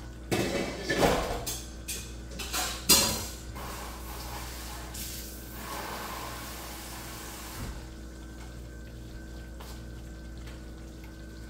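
Tap water splashing into a kitchen sink in a few loud surges, then running more softly for a few seconds, as okra is rinsed.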